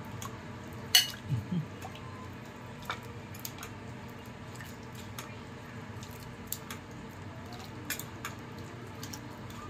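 Faint handling noise: scattered light clicks, with one sharp click and two soft thumps about a second in, over a steady low hum.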